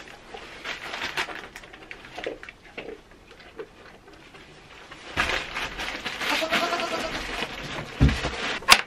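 A goat gives one long, wavering bleat about five seconds in, lasting around two seconds, after a few seconds of soft rustling. Near the end come a thump and a sharp click.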